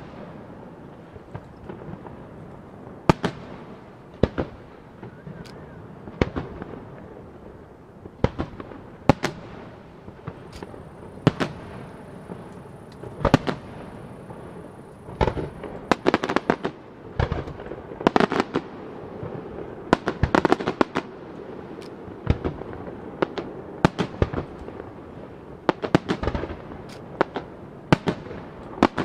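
Aerial fireworks shells bursting overhead in a starmine barrage: an irregular series of sharp bangs, each trailing off in an echo, coming thicker and faster in the second half.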